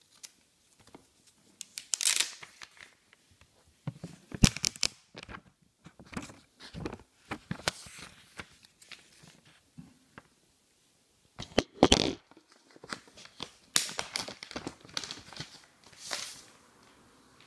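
Irregular rustling, crinkling and scraping of packaging and hands handling an iPad Air and its box, in uneven bursts with short pauses, the loudest around two, four and twelve seconds in.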